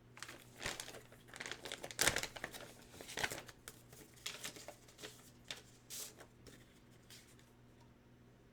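Plastic packaging crinkling and rustling in irregular bursts as a jersey is handled, dying away in the last couple of seconds.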